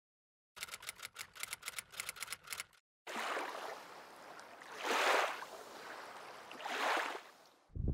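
Logo-animation sound effects: a quick run of sharp clicks, about six a second, for about two seconds, then a rushing whoosh that swells twice as the logo breaks apart.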